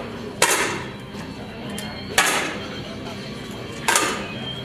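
Three sharp shots from 10m match air rifles on the firing line, about a second and three-quarters apart, each a brief crack with a short reverberant tail in the range hall.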